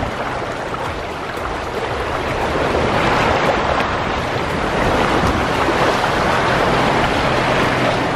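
A Land Rover Discovery ploughing through a flooded, muddy off-road track: a steady rush of water and mud churned up by the tyres and thrown against the body, growing a little louder partway through.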